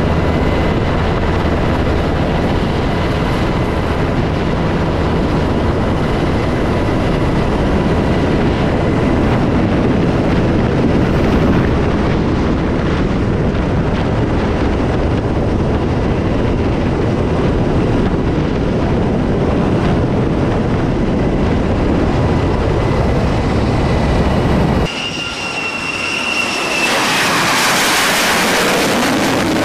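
Steady turbine engine and airflow noise from inside an aircraft flying low over an aircraft carrier's deck, with a constant engine whine. Near the end it changes to an F-35C's jet engine on the flight deck: a high whine, then a loud rising rush.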